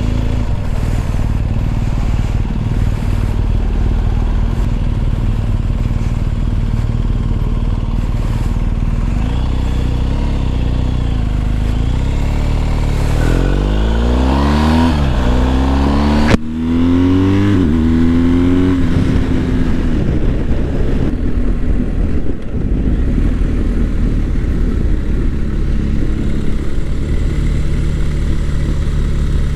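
BMW R1250 GS motorcycle's boxer-twin engine running on the road, heard from on the bike. About halfway through it accelerates up through the gears, its pitch climbing and dropping at each shift, with one sharp click, then settles back to a steady run.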